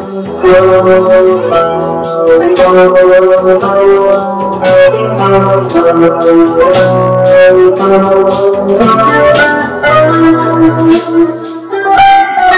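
Keyboard playing sustained organ-sound chords over a changing bass line, with a steady beat of sharp percussive hits.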